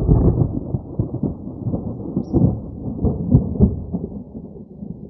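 Thunder rumbling: a deep roll that comes up loud at the start and goes on unevenly, swelling and fading several times.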